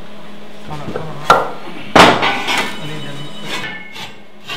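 Metal clanking as a heavy steel truck brake rotor is knocked and set down against a square-tube steel frame: a few sharp knocks with ringing after, the loudest about two seconds in.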